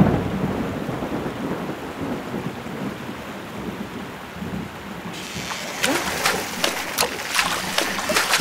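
Cartoon storm sound: a clap of thunder at the start, then steady heavy rain. From about five seconds in, a run of sharp drips and splashes joins the rain.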